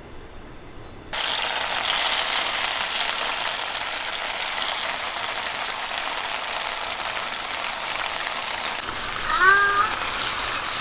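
Steady hiss of rain falling on a surface, cutting in abruptly about a second in. A brief rising call is heard near the end.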